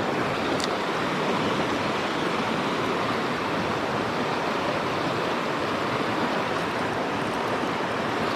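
Steady rush of a mountain trout river's flowing water, even and unbroken.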